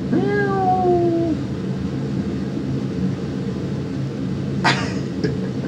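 Domestic cat giving one drawn-out meow, about a second and a half long, that slides slightly down in pitch, over a steady low hum. A sharp click comes near the end.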